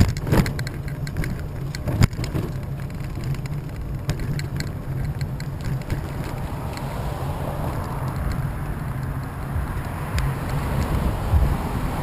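Steady rumble of wheels rolling over an asphalt path, with sharp knocks and a rattle as the mount jolts over bumps, twice near the start.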